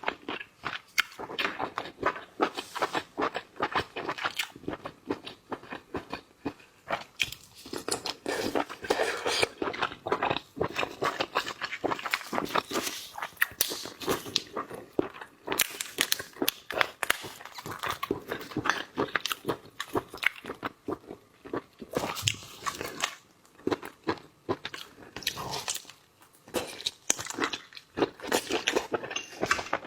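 Close-miked eating of shellfish: many sharp, irregular cracks and crunches as crab or lobster shell is bitten and broken, mixed with wet chewing.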